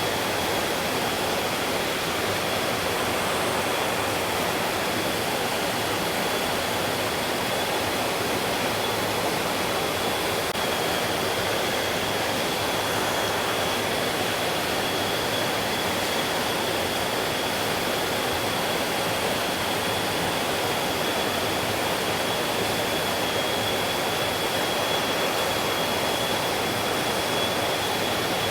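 A mountain stream, its water rushing steadily, with a thin, steady high-pitched tone running through it.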